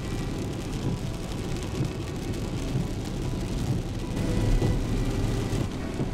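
Inside a car driving in heavy rain: a steady low rumble of engine and tyres on the wet road with rain hissing on the car, and a louder low swell a little past the middle.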